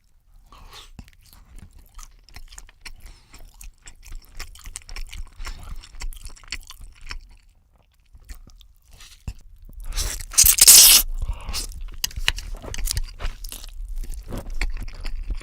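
Close-miked eating: a person biting and chewing crispy food, with soft chewing for the first several seconds, a short pause, then a loud crunching bite about ten seconds in and continued crunchy chewing.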